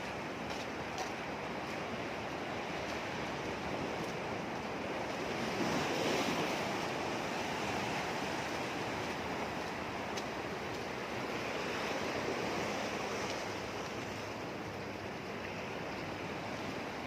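Sea waves washing, a steady rush that swells louder twice, most strongly a third of the way in.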